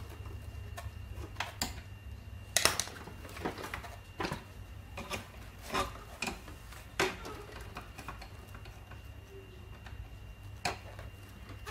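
Irregular clicks and clacks of plastic and metal parts as a hand-held seed planter is taken apart with a screwdriver, its clear plastic hopper and fittings knocking together, loudest a little over two seconds in. A steady low hum runs underneath.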